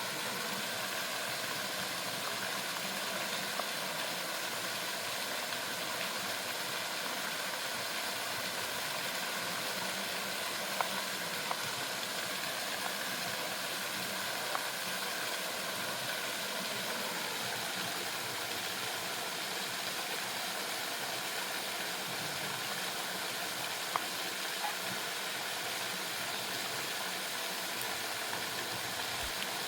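Waterfall rushing steadily, with a few faint clicks, about a third of the way in and again near the end.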